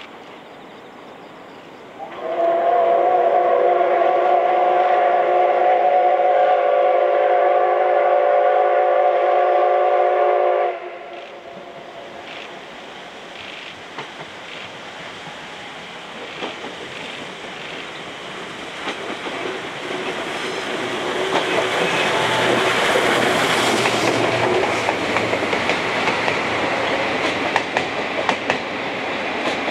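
The C57 180 steam locomotive's whistle sounds one long, steady blast of about eight seconds, several tones together. After it, the train's running noise grows louder as it approaches, with wheel clatter over the rail joints near the end.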